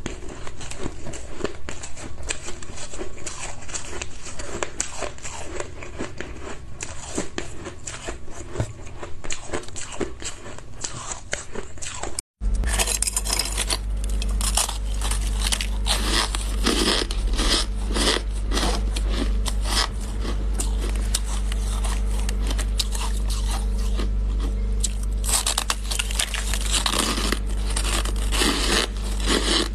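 Close-up crunching and chewing of shaved ice: soft, irregular crunches one after another. About twelve seconds in the sound cuts out for a moment, and after that a steady low hum runs under the crunching.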